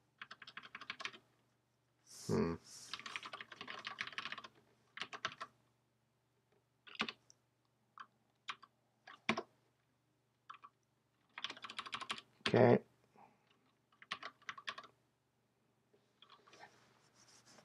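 Computer keyboard typing in short bursts of rapid keystrokes, with pauses and a few single key presses in between. Two heavier thumps stand out, about two and a half seconds in and again about twelve and a half seconds in.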